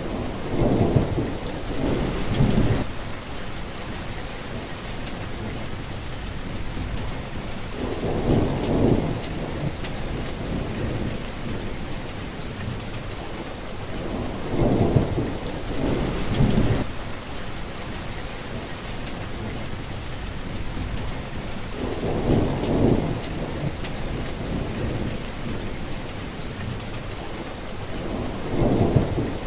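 Steady rain falling, with a low rumble that swells up every six or seven seconds and lasts a second or two each time.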